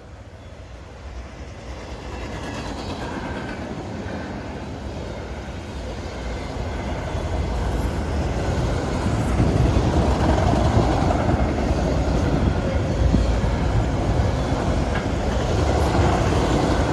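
Canadian Pacific manifest freight train approaching and passing a road crossing. The rumble of the locomotives and rolling cars grows steadily louder over the first ten seconds, then holds loud as the train goes by.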